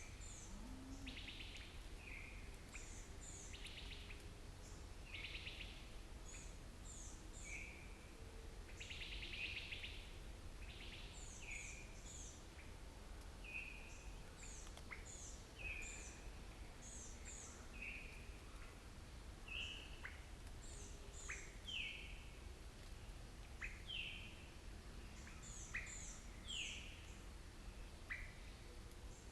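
Several wild songbirds calling and singing together: quick groups of high, thin notes, shorter slurred notes a little lower, and now and then a buzzy trill, over a faint steady low rumble.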